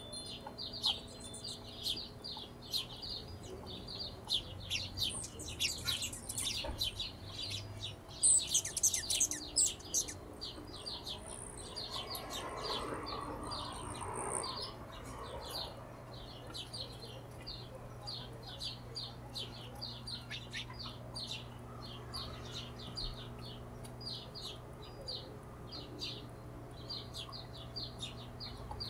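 Hummingbirds calling: a rapid stream of short, high chip notes, several a second, with louder, higher squeaky chatter about eight seconds in.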